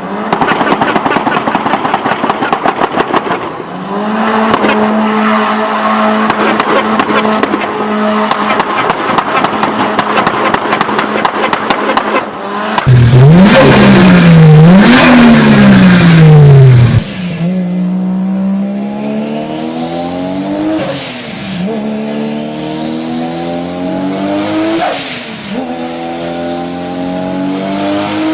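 Turbocharged car engines, likely several clips. First a dense, rapid crackle of pops over an engine held at steady revs, typical of antilag. About 13 s in the loudest part starts: the engine is revved hard up and down for about four seconds. Then a car accelerates with rising revs and a rising high turbo whistle, dropping sharply at gear changes twice.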